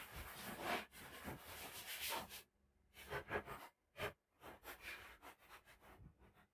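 Hand work on wood: rubbing and scraping strokes, a longer stretch of about two and a half seconds, then shorter strokes with a sharp knock about four seconds in.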